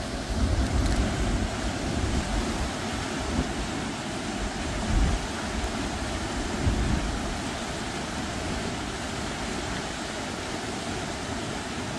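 Water rushing and churning out of a concrete dam spillway, a steady wash of noise, with a few low gusts of wind buffeting the microphone in the first seven seconds.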